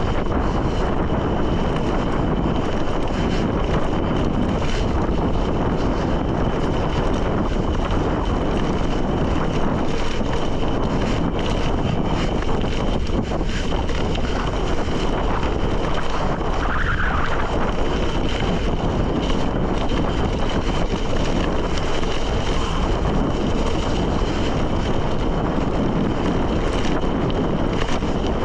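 Wind rushing over the microphone and gravel bike tyres rumbling on a dirt forest road, a steady loud noise while riding.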